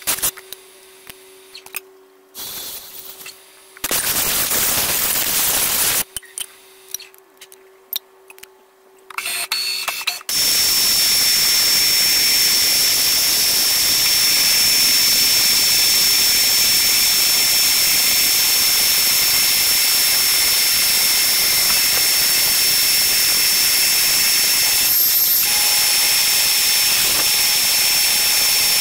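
End mill on a manual vertical milling machine cutting an aluminium plate: a steady, loud cutting noise with a high whine, starting about ten seconds in. Before that, light clatter and a short burst of noise while the setup is handled.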